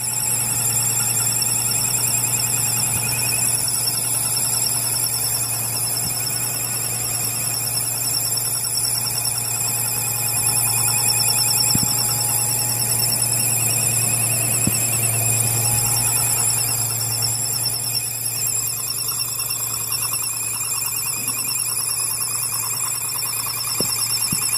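5.7 Hemi V8 engine making a strange noise: a steady, high-pitched warbling whine, like an alarm, over a constant low hum.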